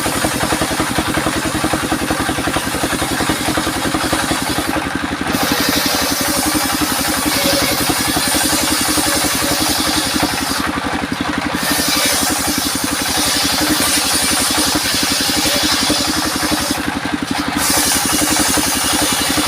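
Homemade engine-driven circular saw running steadily while ripping albasia (sengon) timber. The high cutting noise drops out briefly three times, about six seconds apart, as each pass ends, while the engine keeps running underneath.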